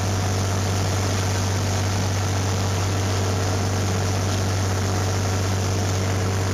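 Tractor engine running steadily while pulling an orchard sprayer, a strong low hum with an even rushing noise over it.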